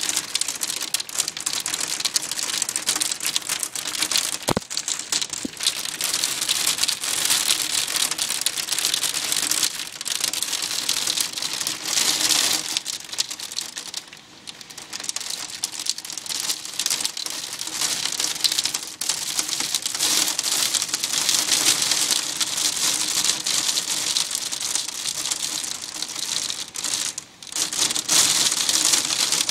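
Hailstones pelting a window ledge, parked cars and pavement: a dense, fast patter of many small hits that eases briefly twice.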